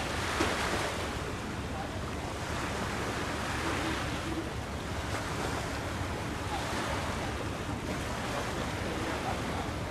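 Waves washing in, swelling and easing every couple of seconds, with wind on the microphone making a steady low rumble.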